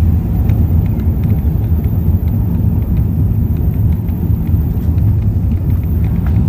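Airbus A380 during takeoff: a steady, loud, low rumble of engines and airframe, with faint scattered ticks and rattles.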